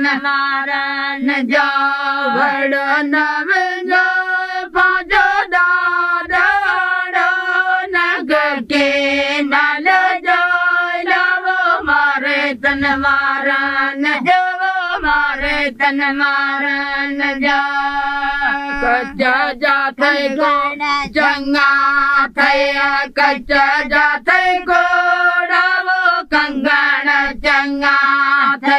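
A group of women singing a folk song together, with long held notes and a slowly moving melody.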